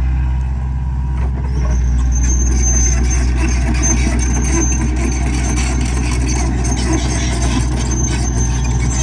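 Heavy earthmoving machine's engine running steadily under load while pushing and digging dirt. From about two seconds in, an on-and-off high metallic squeal and scattered clanks come from the machine working.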